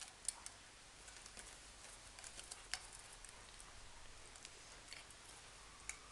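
Faint, irregular clicks and light scratches from a cat biting and clawing at a small toy held in its paws.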